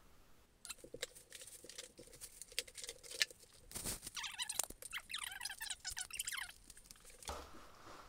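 Plastic wrapping film crinkling, squeaking and tearing as it is pulled off a cordless wet-dry vacuum's roller head, with clicks of plastic parts being handled. The crackling is densest in the middle and stops about a second before the end.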